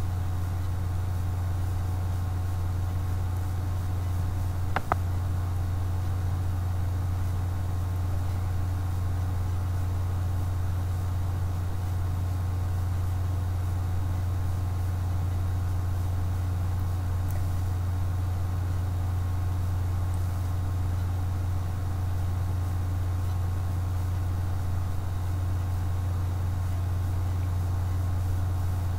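Steady low hum with nothing else going on, and a single short click about five seconds in.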